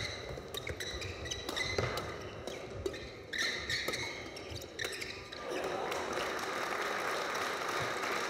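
Badminton rally: rackets strike the shuttlecock in quick exchanges and shoes squeak on the court floor. About five and a half seconds in, the rally ends and spectators applaud steadily.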